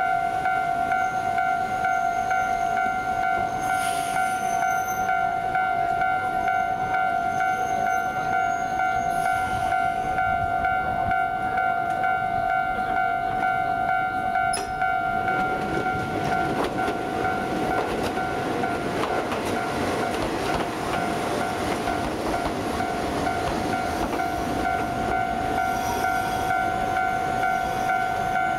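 Electric trains at a station: a steady whine runs throughout. From about halfway, another train runs in alongside with a growing rumble of wheels on rail.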